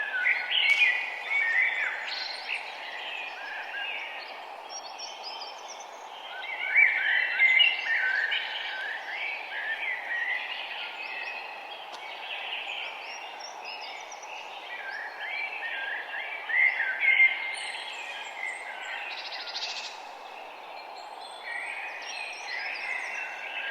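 A dawn chorus of several birds chirping and trilling, overlapping, in busier flurries every few seconds, over a steady low hiss of background noise.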